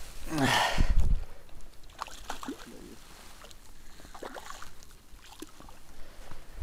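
A hooked trout splashing and thrashing at the water surface as it is played in close to the bank, with the biggest splash under a second in and smaller splashes after.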